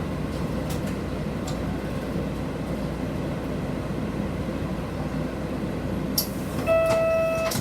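Inside a city route bus: a steady low rumble of engine and road noise as the bus runs. Near the end come a couple of sharp clicks and a short, steady electronic beep lasting under a second.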